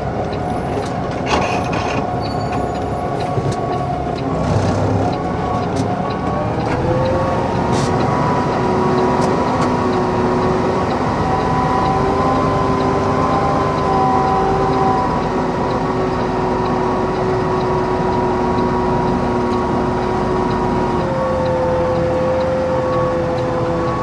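Concrete mixer truck running as it moves slowly, heard from inside the cab: a steady engine rumble with several whines that shift in pitch, one rising about seven seconds in. A few light clicks come in the first few seconds.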